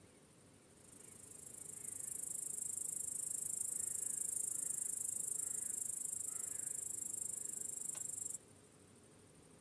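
Crickets chirping in a dense, high-pitched chorus that swells up over about a second, holds steady, then cuts off abruptly near the end. Faint, softer calls sound underneath, and there is a single sharp click just before the chorus stops.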